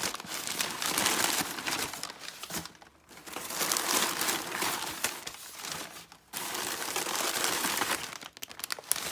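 Packing material stuffed inside a new handbag crinkling and rustling as it is handled and pulled out, in several stretches with short pauses, and a few sharp clicks near the end.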